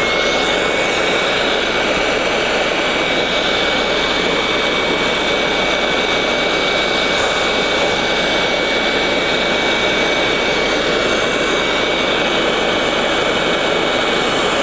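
Hot air rework station blowing at full air flow: a steady rush of air with a thin high whine from its fan, which cuts off abruptly.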